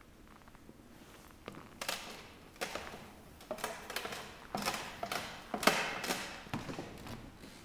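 Footsteps on a wooden floor: a steady run of sharp steps, about one every half to three-quarters of a second, starting about two seconds in.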